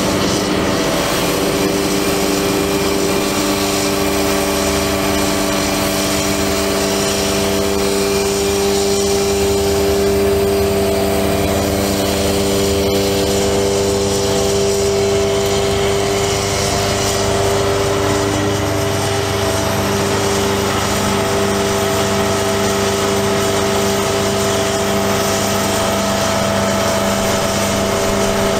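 Truck engine running steadily to power the Palfinger PK32080 articulating crane's hydraulics, with a steady whine of several tones; the tones shift slightly a couple of times as the crane works.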